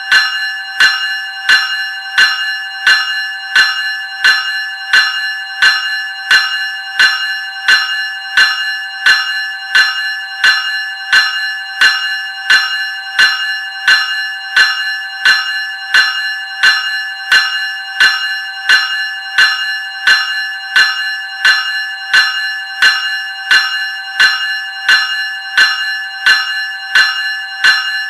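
Graham Electric 373 Series electric bell ringing in a steady, even rhythm of about three strikes every two seconds. Each strike rings on into the next, so the gong never falls silent.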